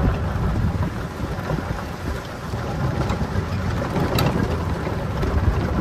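Electric golf cart driving over a gravel driveway: a steady rumble of tyres on gravel and wind on the microphone, with a few short clicks and rattles.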